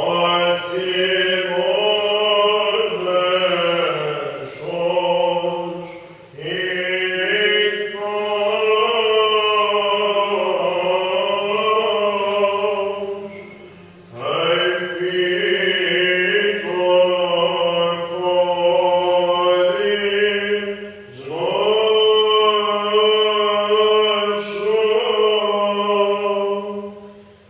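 Byzantine chant: a solo chanter sings long melismatic phrases over a steady held drone note (ison), with brief breaths between phrases about 6, 14 and 21 seconds in.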